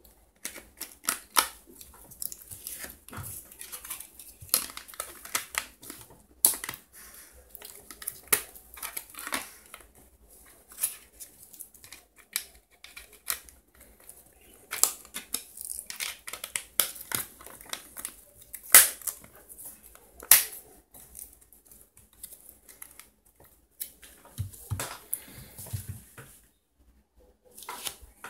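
Irregular series of sharp plastic clicks and snaps from an Alcatel One Touch Pixi 3 smartphone being reassembled by hand: the battery seated and the back cover's clips snapped onto the housing.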